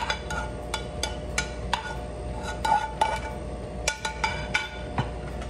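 Metal tongs clinking and scraping against a metal sauté pan while the sauce is scraped out of it onto the plate: a run of irregular sharp metallic clinks, each ringing briefly.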